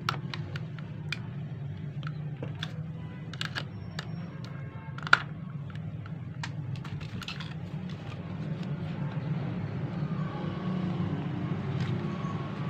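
Scattered clicks and knocks of the hard plastic parts of an HP 80A toner cartridge being handled as its drum unit is taken apart, with one sharper click about five seconds in. A steady low hum runs underneath.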